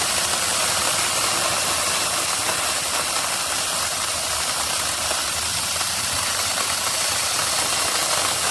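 Cordless electric mini chainsaw running steadily, a continuous even rushing noise of motor and chain with no change in speed.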